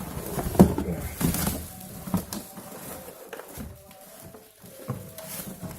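Handling noise from unpacking vacuum-cleaner parts and packaging: irregular rustling with knocks and clicks, the sharpest knock about half a second in.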